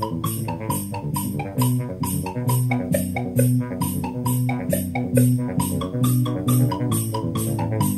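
Music with bass, guitar and drums playing to a steady beat.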